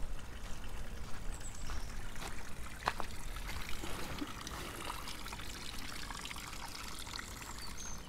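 Small stream of water trickling steadily over stone steps in a stone-lined channel.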